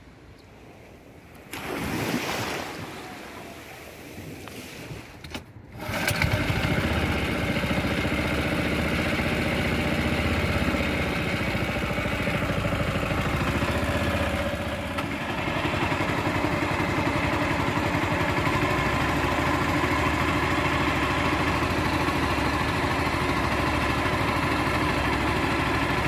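Homemade outboard motor, a 6 hp four-stroke petrol engine driving through a three-wheeled motorcycle's gearbox, running steadily under way from about six seconds in. Before it, a short louder rushing noise about two seconds in.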